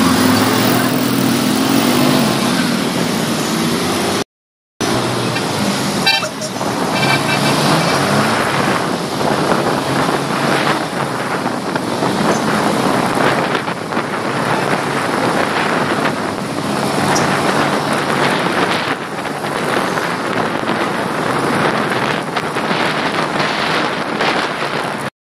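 Wind rushing over the phone's microphone with road and engine noise from a moving motorcycle, loud and steady; the sound cuts out for about half a second around four seconds in.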